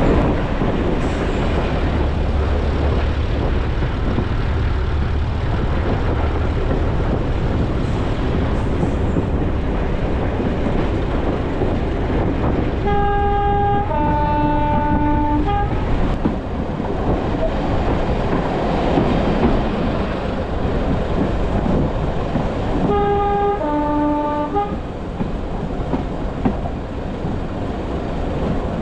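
Diesel-hauled heritage train heard from a carriage window: steady running rumble of the train. The locomotive's two-tone horn sounds twice, about ten seconds apart, each time a higher note followed by a lower one.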